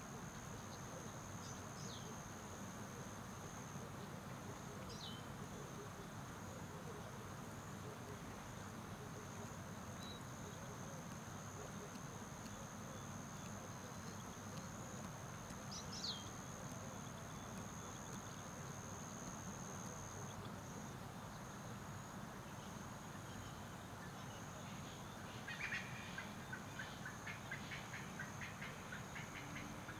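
Faint nature ambience: a steady high-pitched insect trill, a few short falling animal calls, and a quick run of chirps near the end.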